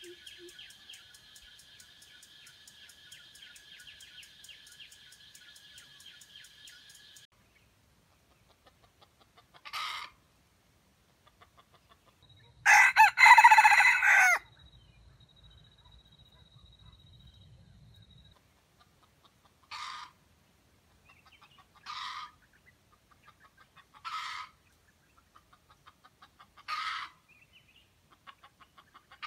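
A jungle fowl rooster crows once, loudly, near the middle: a stuttering crow of about two seconds, broken by a short gap. Short single calls follow every two to three seconds. Before the crow there is a steady high-pitched buzz for the first several seconds.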